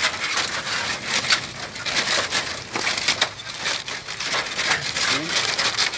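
Pieces of rusty corrugated iron roofing sheet being bent and pushed into a woven plastic sack: a run of irregular crunching, scraping and rustling.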